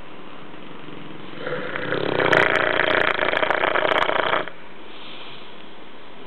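Dogue de Bordeaux (Bordeaux mastiff) snoring: one long, loud snore builds over about a second and stops abruptly a little past the middle.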